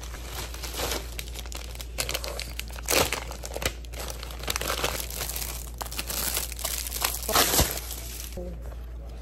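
Plastic packaging crinkling and rustling as a tablet case is unwrapped from a poly mailer and its clear plastic sleeve, with louder crackles about three seconds in and again near the end.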